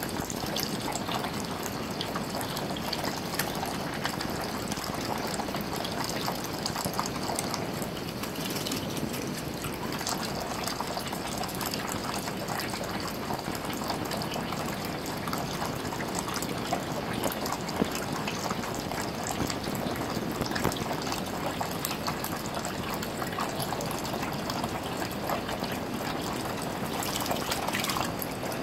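A thin stream of tap water running steadily into a ceramic sink basin, with small splashes from a green-cheeked conure bathing in it. The splashing picks up briefly near the end.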